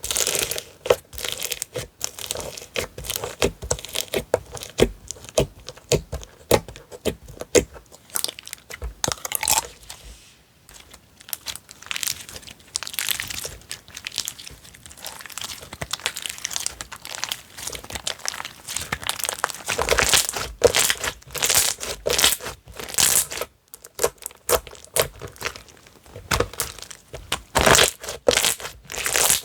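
Slime being squeezed, pressed and stretched by hand: a dense, irregular run of crackling clicks and pops, with short lulls about ten seconds in and again near twenty-four seconds.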